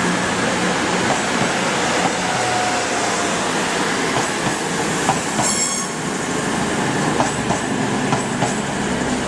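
Passenger train moving along the station tracks, a steady rumble of wheels on rail. A brief high-pitched wheel squeal comes about five and a half seconds in, and sharp clicks from the wheels crossing rail joints follow near the end.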